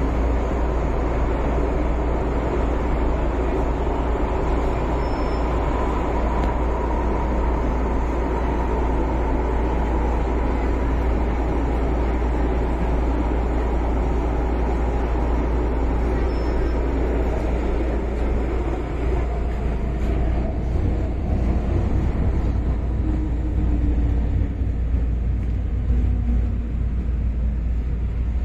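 MTR Tsuen Wan Line M-Train heard from inside the car: the steady rumble of wheels and running gear with a faint motor whine that fades out about halfway through as the train draws into the station.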